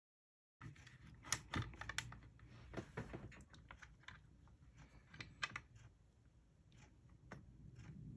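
Hard plastic parts of a Tamiya Grasshopper II buggy kit's gearbox and chassis clicking and knocking lightly as they are handled and fitted together by hand. The sound starts after a brief moment of silence, with a quick cluster of sharp clicks in the first couple of seconds, more about five seconds in, and another near the end.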